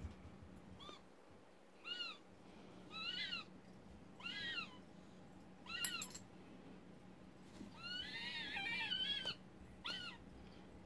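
Eurasian eagle-owl giving short, high squeaky calls, each note rising and then falling in pitch, about six single notes and one longer quick run of them near the end.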